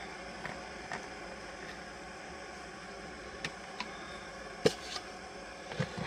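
A steady hiss with a few light clicks and taps of small objects being handled, and one sharp knock a little past the middle as a metal tumbler and gear are moved about.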